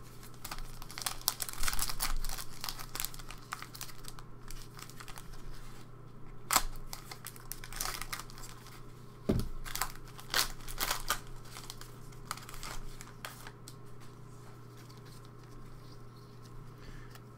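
Plastic wrapper of a trading-card pack being torn open and crinkled by hand: irregular crackling, with a few sharper snaps around the middle.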